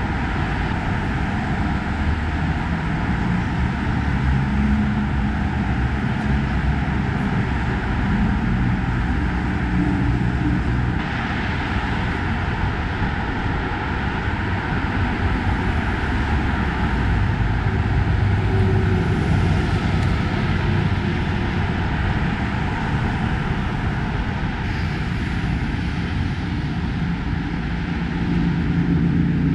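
Heavy traffic on a wide multi-lane city avenue: a continuous rush of tyres and engine rumble that swells a little near the end as nearer vehicles pass.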